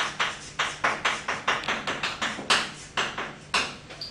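Chalk writing on a blackboard: a quick run of sharp taps and short scrapes, about four strokes a second, as characters are written.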